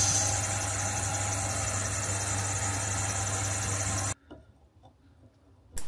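Myford lathe running steadily through a finishing cut on a steam-engine piston, with a steady motor and gear hum. It cuts off abruptly about four seconds in, leaving near silence.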